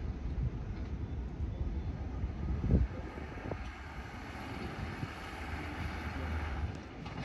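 Jet airliner engine noise, a rushing sound that builds over the second half, with wind rumbling on the microphone and a brief thump about three seconds in.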